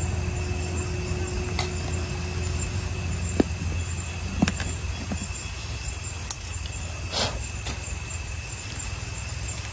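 A few scattered clinks and taps of a utensil against pots and bowls as food is dished out, over a steady low rumble and a constant thin high tone.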